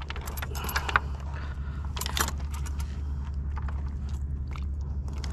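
Handling noise on a kayak: scattered clicks, rattles and scrapes, the sharpest about one and two seconds in, over a steady low rumble.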